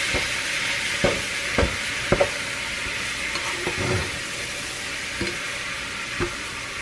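Ground beef sizzling as it browns in a hot pot, stirred with a utensil that scrapes and knocks against the pot every second or so.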